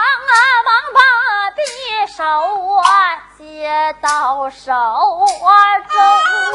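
A high-pitched voice singing unaccompanied in errenzhuan style, with a wavering pitch in short phrases, punctuated by sharp clacks.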